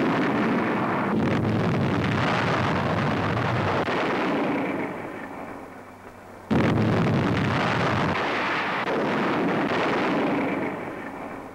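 Two heavy artillery blasts, one at the start and another about six and a half seconds in, each dying away in a long rumble.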